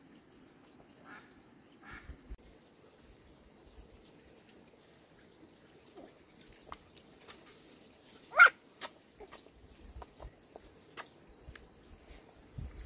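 Chopsticks and a spoon tapping and clicking lightly on bowls as two children eat noodles, scattered small clicks on a quiet background. About eight seconds in comes one short high-pitched squeak, the loudest sound.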